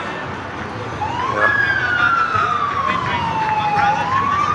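Police vehicle siren wailing: the tone climbs sharply about a second in, slides slowly down over a couple of seconds, then starts to climb again near the end.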